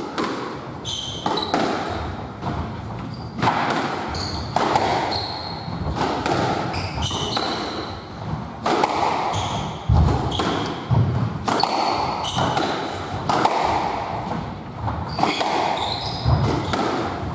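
Squash rally on a wooden court: the ball cracking off the rackets and the walls, one to two hits a second at an uneven pace, with short high squeaks of court shoes and the thud of lunging footsteps on the floor.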